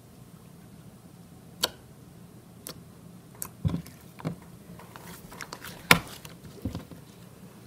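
Slime being squeezed and pressed by hand against a wooden tabletop: scattered sticky clicks and pops, with a few soft thumps as the palm pushes it down. The clicks come thickest, and loudest, about five to six seconds in.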